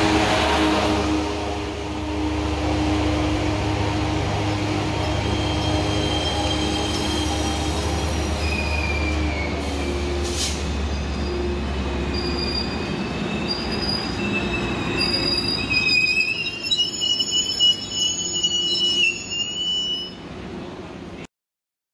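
Metrolink commuter train's bilevel coaches rolling past with a low rumble, then several high, wavering squeals as the train brakes to a stop, loudest near the end. The sound cuts off suddenly just before the end.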